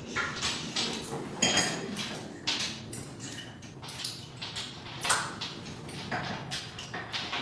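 Metal handcuffs or chains clinking and jingling in short, irregular rattles with shuffling movement, including a few brief ringing chinks.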